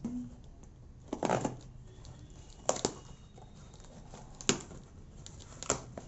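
A small knife blade cutting packing tape on a cardboard parcel and the cardboard flaps being pried open: a rasping scrape about a second in, then three sharp snaps of tape and cardboard spaced a second or more apart.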